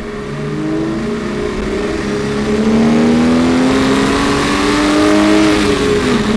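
BMW E90 330i's naturally aspirated 3.0-litre straight-six engine accelerating hard, its pitch climbing steadily for about five seconds, then dropping sharply near the end as it shifts up, over steady tyre and road noise.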